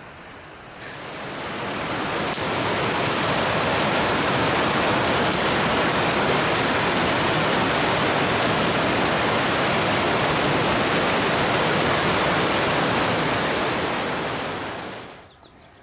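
A steady rushing hiss that fades in over the first couple of seconds, holds evenly, and fades out near the end.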